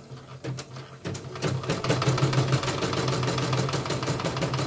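CNY portable computerized embroidery machine stitching: a motor hum under rapid, even needle-stroke ticking that picks up pace and gets louder about a second in. The mechanism has just been stripped and cleaned and is running unoiled.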